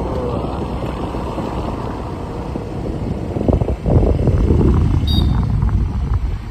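Wind rushing and buffeting over the microphone during a motor scooter ride, with the road and engine noise underneath; the buffeting grows stronger about three and a half seconds in.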